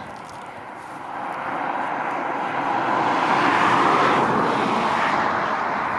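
A distant engine's steady rushing noise that swells from about a second in and then holds.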